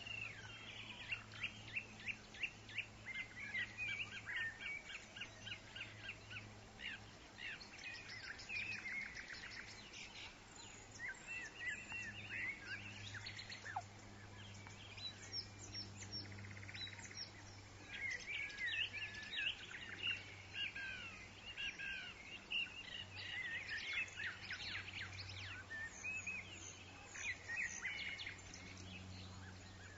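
Several woodland songbirds chirping and singing, with runs of rapid repeated notes and trills, over a faint steady low hum.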